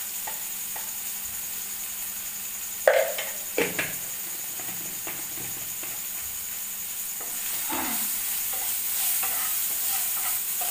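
Onion-tomato masala sizzling in a frying pan, with a few sharp taps about three seconds in as a spoon and spice jar are handled. Toward the end a wooden spatula stirs the pan, and the frying gets a little louder and busier.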